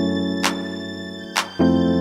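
Background music of held chords with a sharp percussion hit about once a second; the chord changes about a second and a half in.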